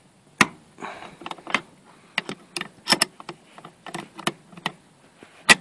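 A hand wrench working loose the seat belt buckle's mounting bolt under a car seat: a series of irregular sharp metallic clicks and knocks.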